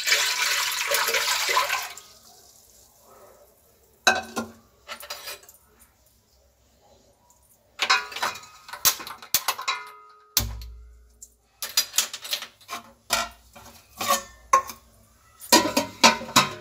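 Water poured from a saucepan into a large aluminium pot for about two seconds, then scattered clinks and knocks of metal pans and a lid being handled and set on the pot, with one dull thump about ten seconds in.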